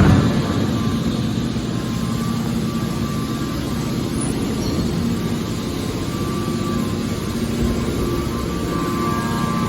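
Hydraulic aluminium can baler running: a steady machine drone with a pump hum, opening with a sudden loud knock. Near the end the hum grows a little louder and more tonal.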